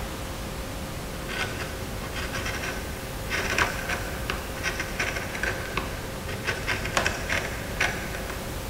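A carving gouge pushed by hand through oak, paring a carved leaf motif: a dozen or so short scraping cuts, coming thicker from about three seconds in.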